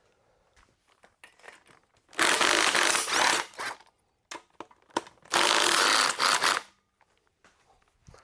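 Ratchet wrench being spun on connecting rod cap bolts during an engine teardown, in two bursts of about a second and a half each, with a few light tool clicks between.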